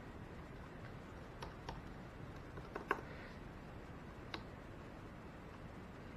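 A handful of scattered light clicks from a hand pressing at a laptop's keys and touchpad, the sharpest about three seconds in, over a faint steady hum of the computer's fans.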